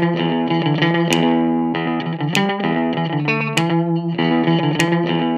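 Background music led by distorted electric guitar, with chords struck about once a second.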